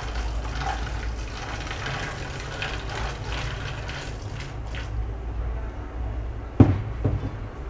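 Water pouring from a pitcher into a plastic bottle, stopping about five seconds in. Then a sharp knock as the pitcher is set down on the table, with a smaller knock just after, over a steady low hum.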